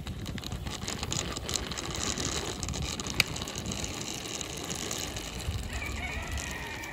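Plastic toy CNG autorickshaw pushed by hand along a rough concrete ledge, its small plastic wheels rolling with a steady rattle and one sharp click about three seconds in.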